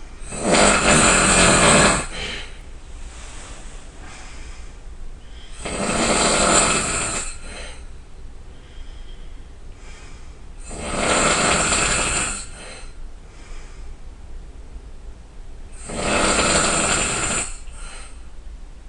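A person snoring loudly: four long snores about five seconds apart, with quieter breathing between.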